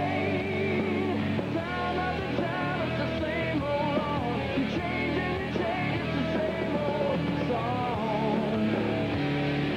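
Rock music: a band with distorted electric guitars and a singing voice playing steadily.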